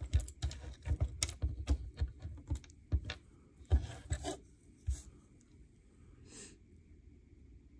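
Loose plastic LEGO pieces clicking and rattling as fingers sort through a pile on a tabletop. The clicks come fast and thin out after about five seconds.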